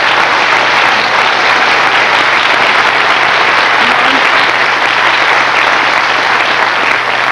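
Studio audience applauding steadily, easing off near the end.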